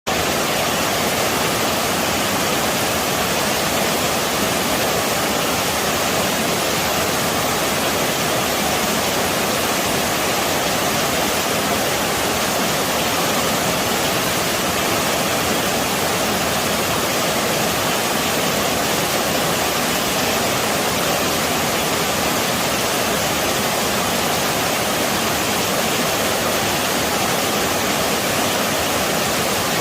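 A waterfall rushing steadily: a loud, unbroken roar of falling water.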